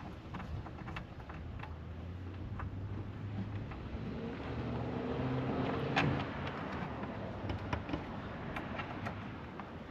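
A motor vehicle passing by, its engine and road noise building to a peak about six seconds in and then fading. Light clicks and taps from hand tools and bolts being handled come and go over it.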